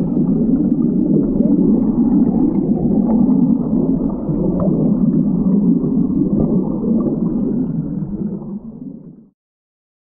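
Churning waterfall water heard underwater: a loud, muffled low rumble and gurgle of turbulent water and bubbles. It fades in the last second or so and cuts off about nine seconds in.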